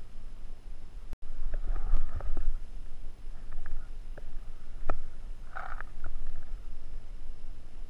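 Low rumble of wind and handling on the camera microphone, broken by a few sharp clicks and knocks from gear being moved, the sharpest about five seconds in.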